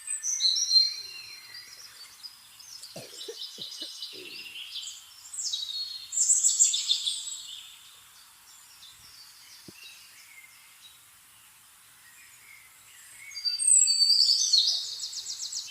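Birds singing and chirping in high, rapid phrases and trills, in three loud spells with quieter gaps between.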